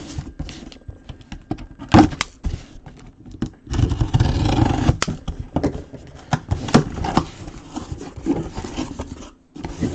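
A boxed mini football helmet being opened and unpacked by hand: scattered knocks, taps and scrapes of cardboard and packaging, with a louder stretch of scraping about four seconds in.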